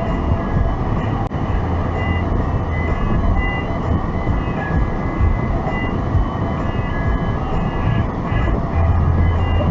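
Steady low rumble of a car's engine and tyres heard from inside the cabin while driving on a snowy road, with faint short high-pitched tones scattered through it.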